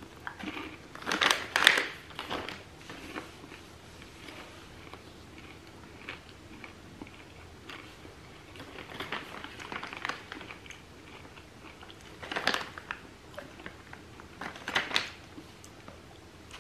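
A person chewing a mouthful of crunchy caramel popcorn mixed with potato chips and pretzels, in separate bursts of crunching with quieter gaps between.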